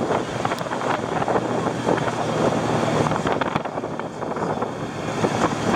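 Light propeller plane flying overhead, its engine a steady low drone, mixed with wind buffeting the microphone and the rush of surf.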